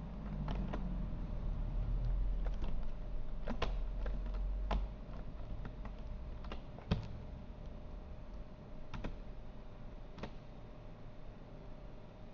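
Computer keyboard keys pressed one at a time, a dozen or so separate clicks at uneven spacing rather than continuous typing, over a steady low hum. The low rumble is heavier for the first five seconds, then eases.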